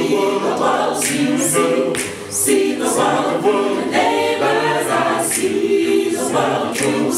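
Mixed gospel choir singing a cappella in several-part harmony, live in a hall, with a brief dip in loudness about two seconds in.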